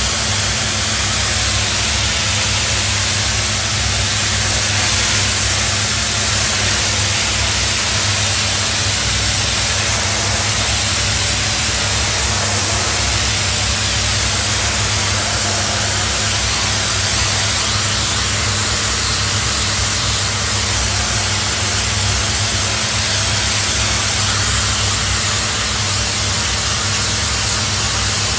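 Doff superheated steam cleaner's lance jetting hot water and steam at close range onto a stone patio slab: a steady loud hiss with a steady low hum underneath.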